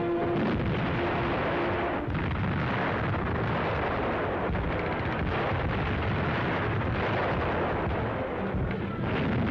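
Battle sound effects on an old newsreel sound track: a dense, continuous din of shell explosions and gunfire, with sharper blasts about half a second and two seconds in. Orchestral music fades out at the start.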